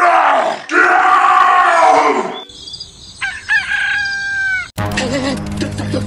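Loud, strained cries that fall in pitch, then a rooster crowing about three seconds in. Music with a steady beat starts suddenly near the end.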